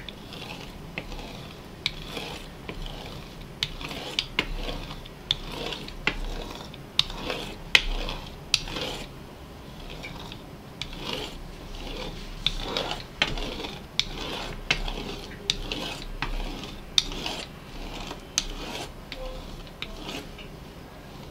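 A green-handled cutter drawn stroke after stroke through a thin rolled-out sheet of dough, scraping on the work surface beneath, with sharp clicks among the strokes, about one to two a second.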